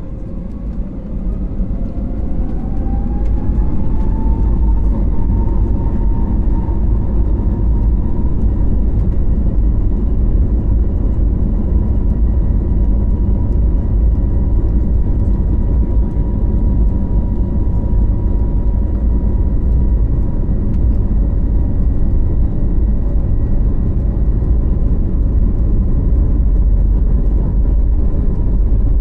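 Airbus A321neo's turbofan engines spooling up to takeoff thrust, heard inside the cabin. A whine rises in pitch and grows louder over the first few seconds, then settles into a steady tone over a loud low rumble.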